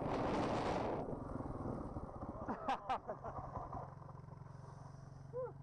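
Enduro motorcycle crash: a loud rush of tumbling noise in the first second that dies away, a few short cries about halfway through, then the downed bike's engine left running at a steady idle.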